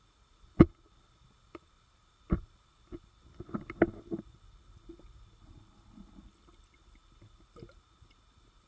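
Muffled underwater knocks and bumps, the sharpest about half a second in, near two and a half seconds and a cluster around four seconds, with soft low rumbling between them and a faint steady hum, as a camera is handled underwater among a school of catfish.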